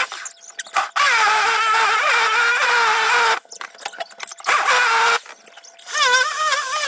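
Corded jigsaw cutting through the countertop, running in bursts. It starts and stops three times, with a long run of a couple of seconds and then two shorter ones, and its pitch wavers under the load.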